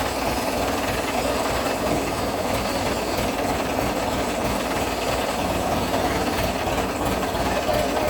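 Industrial tray washing machine running: a steady, dense mechanical noise with a fast low flutter.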